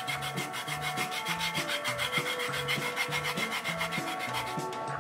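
A lemon being zested: the peel rubbed quickly back and forth against a grater in rapid, even strokes.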